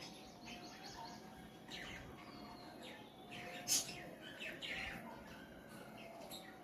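Small birds chirping in the background, with a brief sharp high sound a little past halfway.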